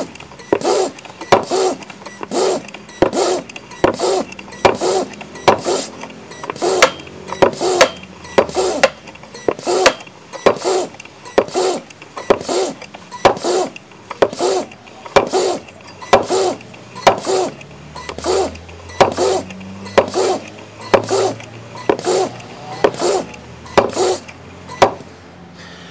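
High-pressure PCP hand pump being pumped steadily by hand. Each stroke gives a rhythmic puff of compressed air, about three strokes every two seconds, as it charges a cylinder through a car tyre valve toward 2000 psi.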